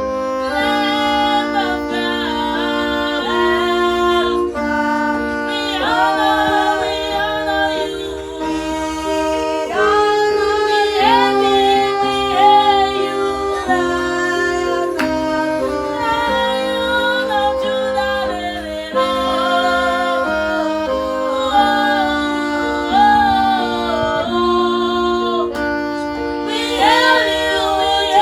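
Worship song: a voice singing a melody with glides and ornaments over sustained instrumental chords that change every couple of seconds.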